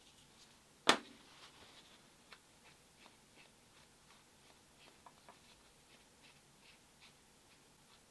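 A single sharp click about a second in, then faint scattered ticks and rustles of a cloth being wiped over a small 3D-printed resin model.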